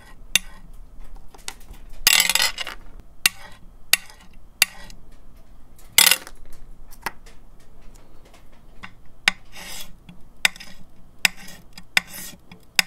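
A hard 3D printer nozzle tip scratching and ticking across a glass build plate in a series of short scrapes, with a longer, louder scrape about two seconds in and another sharp one about six seconds in.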